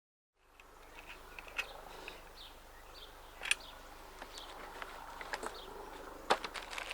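Faint outdoor background with small birds chirping, broken by a few sharp metallic clicks of hardware being handled, the loudest about three and a half and six seconds in. The track is silent for the first half second.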